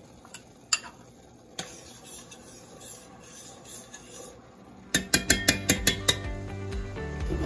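A metal spoon scraping honey from a ceramic bowl and stirring it into a steel pot of teriyaki sauce. There are soft scrapes and a few light clinks, then a quick run of sharp clinks about five seconds in.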